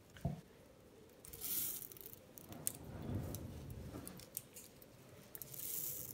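Threshed wheat grains being scooped and poured into a glass jar by hand. A hiss of pouring grain comes twice, with small clicks and rattles of kernels against the glass.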